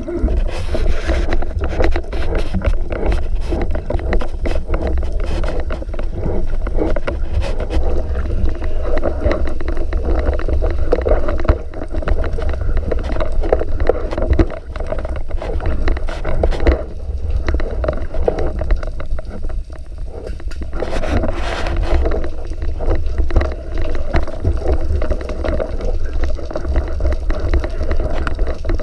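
Underwater water noise heard on a freedive: a steady low muffled rush of moving water, dotted with many small clicks and crackles.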